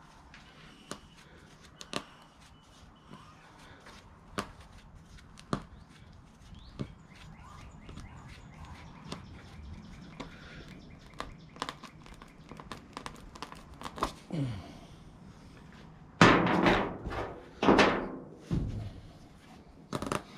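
Tire plug reamer being worked into a puncture in a steel-belted radial tire: scattered light clicks and taps, then near the end two loud rasping rips, a second apart, as the tool tears through the rubber and the steel belts.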